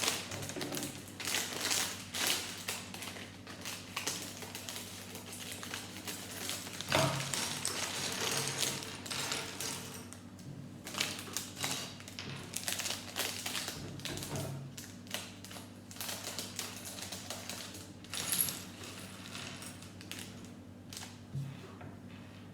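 Small plastic Lego pieces clicking and rattling, with crinkling of plastic parts bags being handled and opened. The clicks come thick and fast at first and thin out in the second half.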